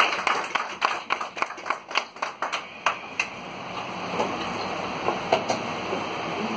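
Audience applause: many people clapping irregularly, tailing off about three seconds in and leaving a steady room hum.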